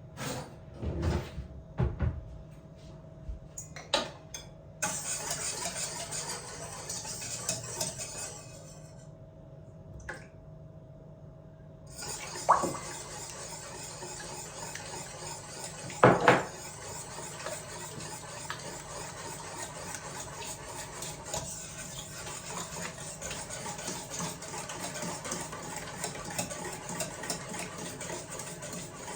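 Water running from a tap, with dishes and utensils knocking against each other now and then; two sharper clanks come about 12 and 16 seconds in.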